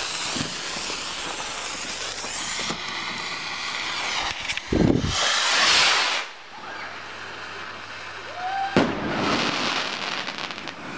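Firework rockets. A steady hiss is followed about halfway through by a thump and the loud rushing whoosh of a rocket going up. Near the end a single sharp bang of the burst is followed by crackling.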